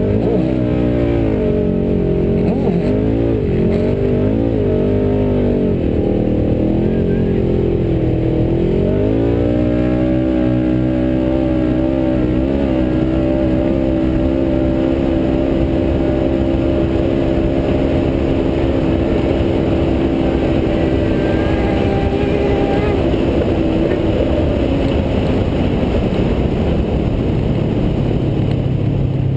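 Turbocharged Polaris RZR side-by-side engine under hard throttle. Its pitch rises and falls for several seconds, then holds steady at a high pitch over a rushing of wind and sand. The engine note fades near the end, leaving the rushing noise.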